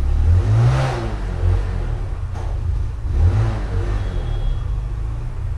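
A motor vehicle engine running with a steady low rumble, revving up and back down twice: once about a second in and again just past three seconds.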